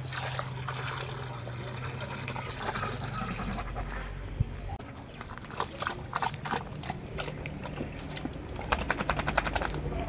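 Water pouring from a plastic jerrycan into a clay bowl. About halfway through, a dog starts lapping water from the bowl in a quick run of short laps, about three to four a second.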